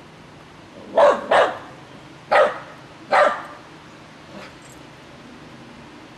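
Small dog barking: four short, sharp barks, the first two close together about a second in, then two more about a second apart, and a faint one after.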